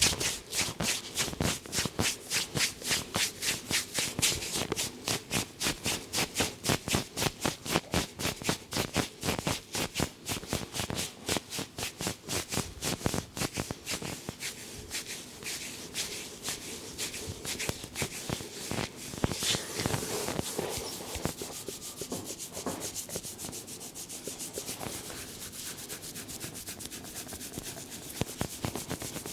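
Brisk, rhythmic rubbing strokes of a head massage on the scalp and hair, several strokes a second. About halfway through, the strokes turn quieter and less regular.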